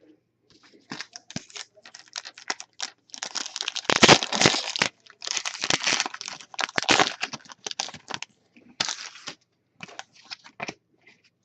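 Trading-card pack wrapper crinkling and being torn open, with cards being handled. There are dense runs of crackling about three seconds in and again from about five to seven seconds, then scattered light clicks.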